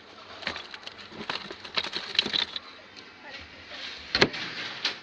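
Scattered clicks and knocks, the loudest a single sharp knock about four seconds in, over faint background voices.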